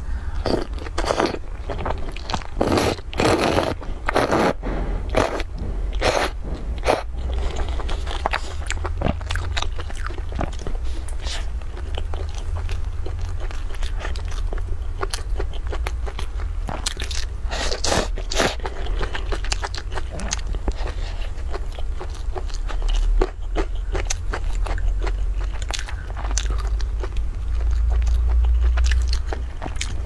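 Close-miked eating: noodles slurped from a cup of soup, wet chewing and bites into soft steamed buns, as an irregular run of smacks and crackles. The loudest bursts come in the first few seconds and again a little past the middle, over a steady low hum.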